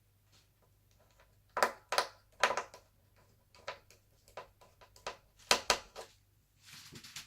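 Sharp clicks and knocks of plastic laptop parts being handled and fitted during reassembly, in two clusters, then a brief rustle or scrape near the end.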